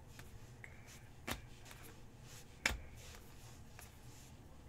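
Glossy Panini Select football cards being slid one by one through a stack held in the hands, with soft card-on-card rustles and two sharper clicks about a second and a half apart.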